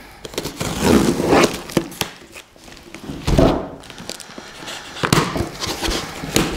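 Packing tape on a cardboard box being slit with a small blade and the flaps pulled apart: scraping, tearing and rustling of tape and cardboard in about three bursts, with sharp clicks.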